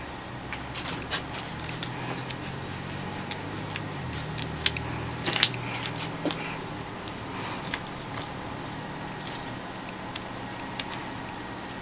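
Small plastic model-kit parts of a 1/144 High Grade Gundam kit being handled and pressed together by hand, giving irregular sharp clicks and snaps. The loudest snaps come about five seconds in.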